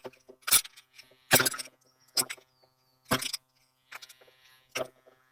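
Rings clicking sharply, five times at uneven intervals of roughly a second, some strokes ringing on briefly.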